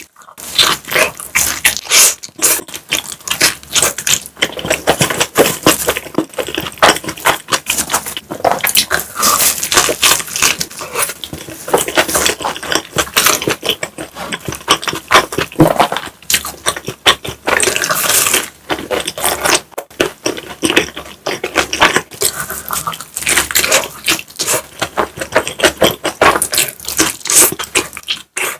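Close-miked mukbang eating sounds: a person chewing pizza and mac and cheese, with a dense, irregular run of wet mouth clicks and smacks.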